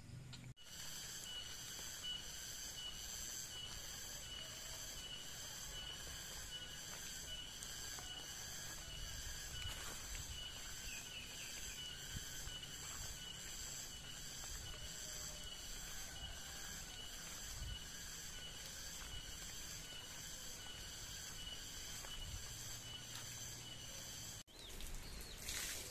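Outdoor insect chorus: steady, high-pitched pulsing chirring over low background rumble, cutting off abruptly near the end.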